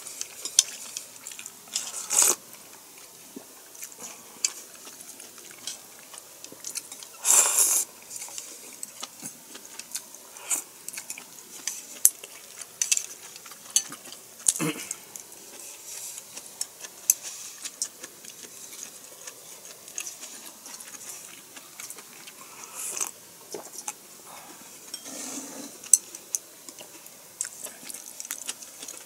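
A person eating close to the microphone: chewing food, with chopsticks clicking against a wooden bowl and a few short slurps from the bowl. A single low knock sounds about halfway through.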